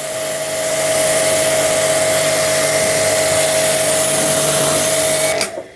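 Orion Superjet 100S jet cleaner running with a steady motor hum while it forces water through a flattened nozzle as a hissing, misty fan spray. It cuts off suddenly near the end.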